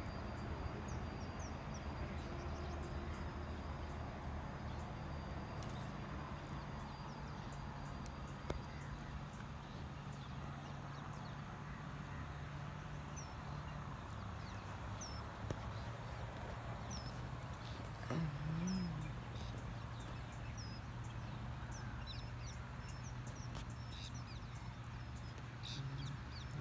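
Outdoor ambience: a steady low hum under many short, high bird chirps, with one short low call about eighteen seconds in.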